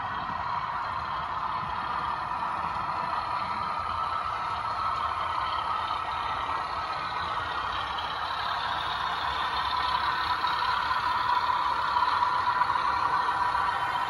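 Sound-fitted OO gauge model of a Class 60 diesel locomotive: the decoder's recorded diesel engine runs steadily through the model's small speaker, with the rolling of the model train on its track. It grows louder towards the end as the train draws near.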